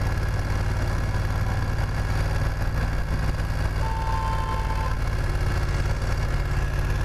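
A 900 cc motorcycle engine running steadily at low speed through a bend, with road and wind noise. A short steady high tone sounds for about a second, about four seconds in.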